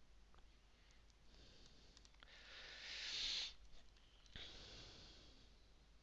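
A person breathing close to the microphone: one breath builds for about a second and cuts off, then a second breath starts abruptly and fades.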